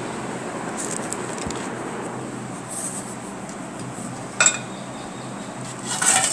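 Glass bowls and dishes clinking now and then as they are handled on a table, over a steady background hiss; one sharp clink about four seconds in, and a short burst of clattering near the end.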